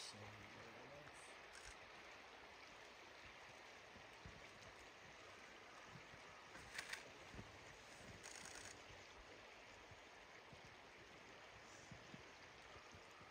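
Near silence: a faint, steady rush of flowing river water, with a few brief soft clicks around the middle.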